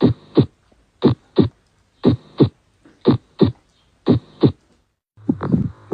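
Heart sounds, the "lub dub" of a beating heart: pairs of short thuds about one pair a second. Near the end the beats change, with a steady low hum beneath them.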